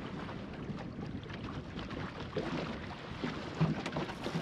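Water rushing and splashing along the hull of a small plywood sailing skiff under way, with wind on the microphone. A few sharp knocks on the boat near the end.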